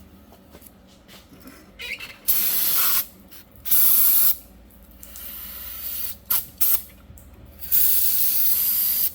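Aerosol brake cleaner sprayed onto a brake caliper to clean it before the piston is pushed back in: a series of hissing bursts, two of under a second each, two very short puffs, then one longer spray near the end.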